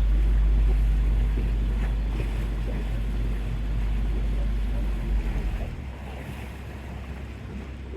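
Small passenger ferry under way on the water: engine and water noise with wind buffeting the microphone. The heavy low rumble drops away about six seconds in.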